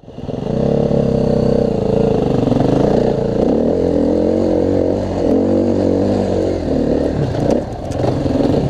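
KTM dirt bike engine running and revving under load on a steep rock climb, its pitch rising and falling with the throttle. The engine drops briefly near the end, with a few sharp clicks.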